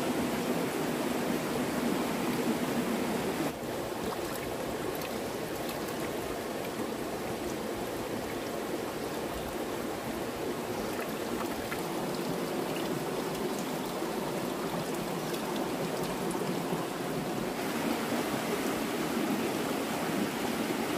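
Steady rushing of flowing water, with a sudden small drop in level about three and a half seconds in.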